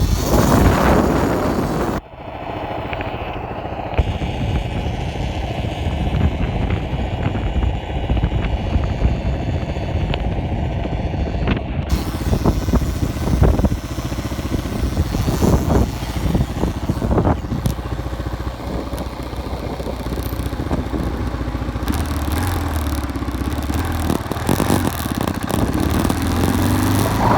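2006 Kawasaki KLR 650's single-cylinder engine running, with scattered sharp knocks around the middle and the engine pitch stepping up and down near the end. The owner is chasing a noise from the front sprocket area that grows louder in higher gears, and a random noise from the front end.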